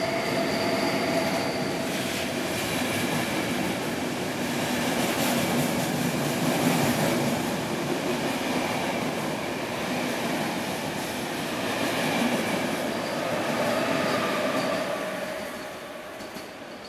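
KTT through train with double-deck coaches passing through the station at speed without stopping: steady loud rumble and rush of wheels on the rails with a faint high whine over it, fading as the last coach goes by near the end.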